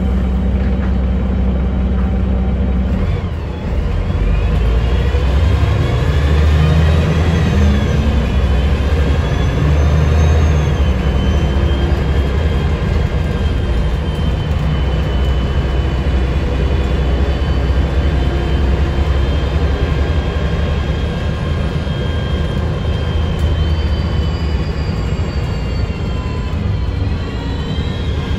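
Mercedes-Benz O405NH city bus heard from inside the passenger cabin while driving: a steady low engine rumble with high whining tones that rise and fall with its speed, briefly dipping about three seconds in and again near the end.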